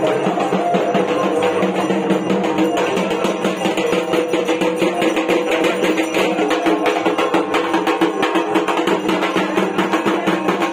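Dhak, the large Bengali barrel drum, beaten with thin sticks in a fast, continuous rhythm, with steady ringing tones underneath.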